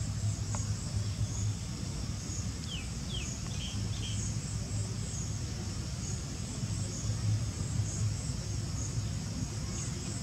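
Steady insect chorus, a high-pitched drone that pulses softly, over a low rumble, with a quick run of four short falling chirps about three seconds in.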